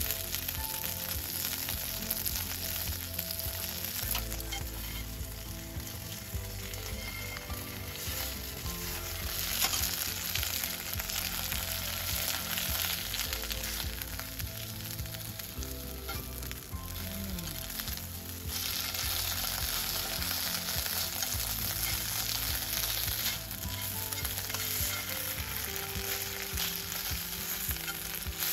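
Garlic edamame sizzling in a black frying pan over a wood fire, turned over now and then with metal tongs.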